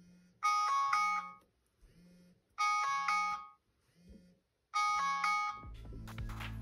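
Smartphone alarm tone ringing: a short chime melody of a few notes, about a second long, repeating three times at roughly two-second intervals with quiet gaps between. A low hum comes in near the end.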